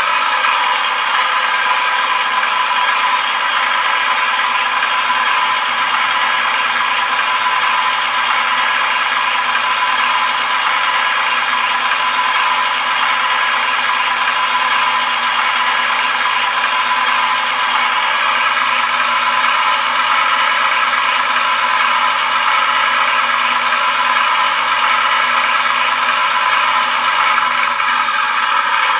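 Class 37 diesel engine sound from a LokSound v5 sound decoder in an OO gauge model locomotive, played through a small speaker: an English Electric diesel running steadily, thin and without deep bass.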